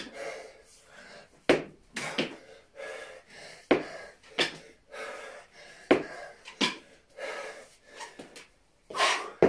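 A man breathing hard during kettlebell reps, with a short, sharp exhale about every second, each trailing off into a breathy hiss.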